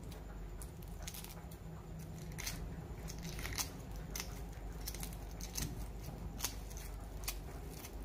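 Shell of a hard-boiled egg crackling and snapping as fingers peel it away, with irregular sharp clicks about one or two a second.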